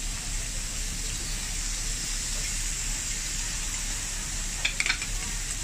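Chicken wings and meat slices sizzling on a tabletop Korean barbecue grill plate: a steady hiss over a low hum, with a few quick clicks about five seconds in.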